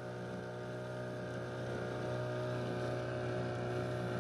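A small boat's engine running at a steady speed while the boat is under way, with a constant low hum and the rush of wind and water.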